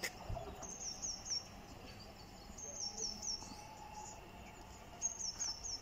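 A small songbird singing a short phrase of three or four high, falling notes, repeated three times, over faint steady background noise. A single sharp click sounds right at the start.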